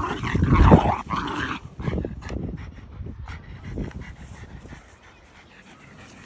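Jack Russell terriers making close-up dog noises, loudest in the first second and a half, then fading to a few scattered small sounds.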